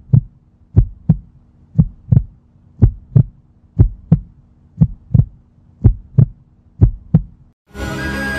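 Heartbeat sound effect: paired low lub-dub thumps about once a second, eight beats in all, over a faint steady hum. The beats stop shortly before music starts near the end.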